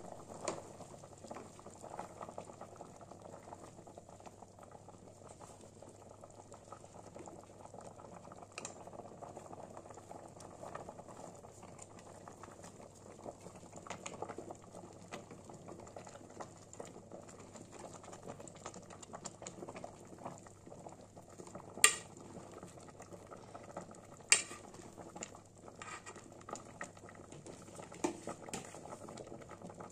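Fish broth boiling and bubbling in a metal pot while it is stirred with a metal ladle. A few sharp clinks of the ladle against the pot, the loudest two about two-thirds of the way through.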